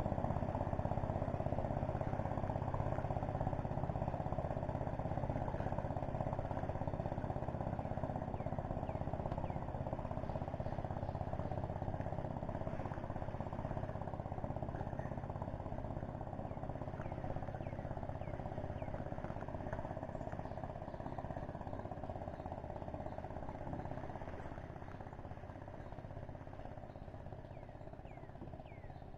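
A small boat's motor running with a steady drone that slowly fades away.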